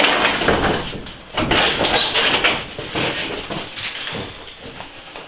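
Large overhead workshop door being pulled down shut: a long noisy rumble with clatter through it, loudest in the first couple of seconds, then fading away.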